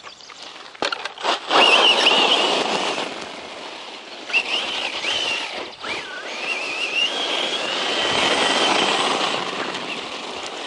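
A 1/10 scale Circuit Thrash RC truck with a brushless 2700 kV motor driving off. The high-pitched motor and gear whine rises and falls with the throttle over a rushing noise of the tyres on dirt. It starts about a second and a half in, after a few light clicks.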